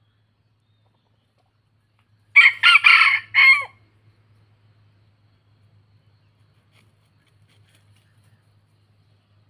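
Junglefowl-cross rooster crowing once: a short crow of about four clipped notes, lasting under two seconds, starting about two seconds in.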